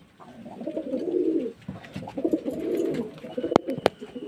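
Domestic pigeons cooing: a run of low, warbling coos one after another, with two sharp clicks about three and a half seconds in.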